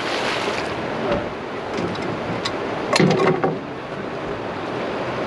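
Steady rush of water below a dam, with a brief cluster of knocks and clatter about three seconds in.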